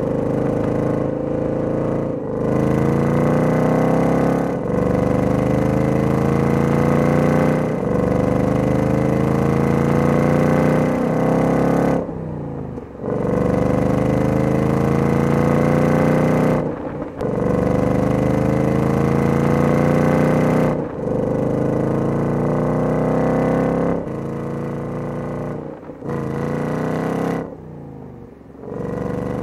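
Exhaust note of the 2024 Ford Mustang GT's 5.0-litre Coyote V8 pulling hard, in about ten rising runs that each break off abruptly.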